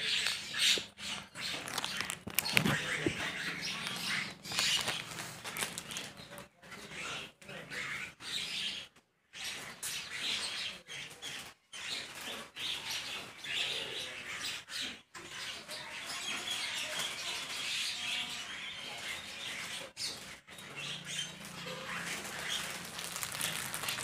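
A flock of common mynas chattering and calling while feeding, with wings flapping as birds take off and land. The sound breaks off briefly a few times.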